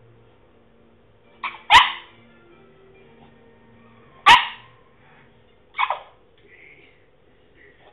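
French Bulldog trying to bark, letting out three short, sharp barks about two seconds apart, the first with a small yip just before it.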